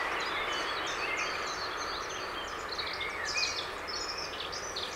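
Many songbirds chirping and singing in quick short notes over a steady, slowly fading rumble from a freight train moving away down the line.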